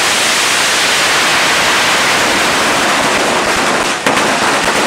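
A long string of firecrackers going off, the bangs so dense that they merge into one continuous crackling hiss. About four seconds in it dips briefly, and a few separate sharp cracks stand out.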